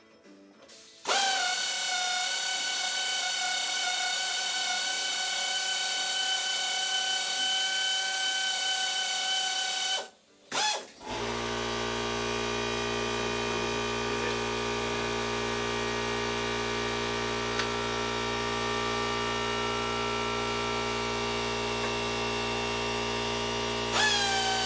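A power tool's motor running in long steady stretches, its whine dipping in pitch as it starts and takes load. It cuts out briefly about ten seconds in, then runs on with a low hum added, and restarts near the end.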